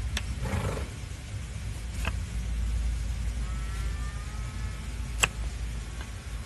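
Large flat hoof knife paring the horn of a donkey's overgrown hoof against a wooden block: a scrape and a few sharp knocks as the blade cuts through, the loudest about five seconds in, over a steady low rumble.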